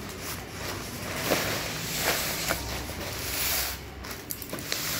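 Clear plastic wrapping film rustling and crinkling in several swishes as it is pulled off and gathered from a cardboard carton, with the box shifted on a tile floor and a few light knocks.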